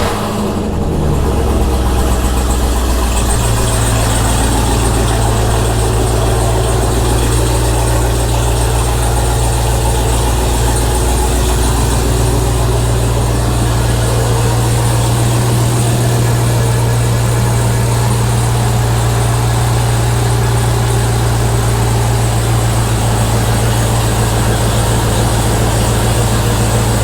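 Jeep Grand Cherokee Trackhawk's supercharged 6.2-litre Hemi V8 idling loud and steady after start-up. Its idle note shifts during the first few seconds, then holds constant.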